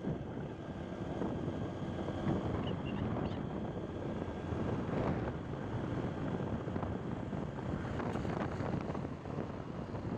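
Wind buffeting the microphone of a moving vehicle, over a steady rush of road and engine noise.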